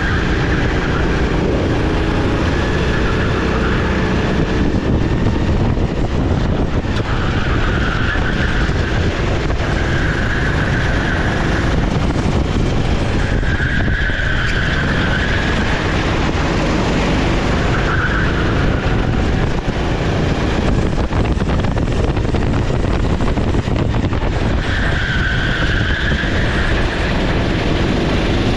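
Sodi SR4 390cc kart's single-cylinder four-stroke engine running continuously at race pace, with a high tyre squeal coming and going every few seconds for a second or two at a time.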